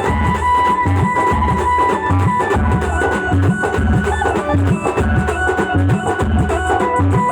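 Folk band music: a steady, driving drum rhythm under a melody line that holds one long high note for the first couple of seconds, then moves in shorter notes.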